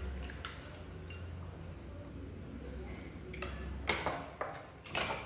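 Close-miked eating and chewing, then three sharp clinks and knocks near the end as a porcelain bowl and chopsticks are set down on a wooden table.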